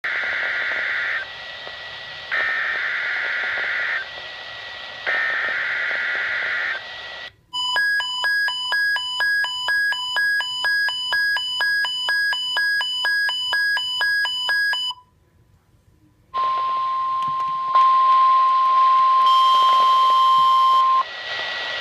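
NOAA Weather Radio Required Weekly Test over a steady radio hiss. It opens with three SAME digital header bursts, each a buzzy screech of about a second and a half with short gaps between. About seven seconds in comes a run of electronic beeps at about three a second lasting some seven seconds, then after a brief gap a steady beep tone of about five seconds.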